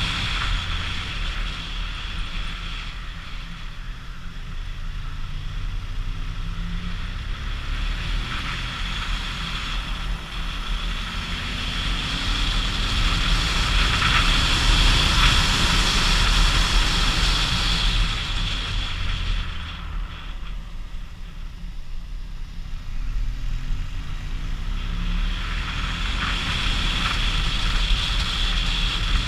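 Motorcycle engine pulling uphill under wind rush on a ride-along action camera, the engine note rising and falling with the throttle. It grows louder in the middle and eases off for a few seconds about twenty seconds in before picking up again.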